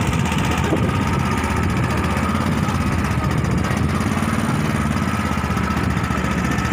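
Small boat's engine running steadily at a low, even speed.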